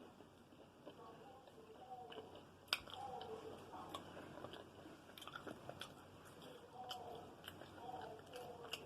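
Close-up chewing and biting of food, faint and wet, with scattered mouth clicks and one sharper click about three seconds in.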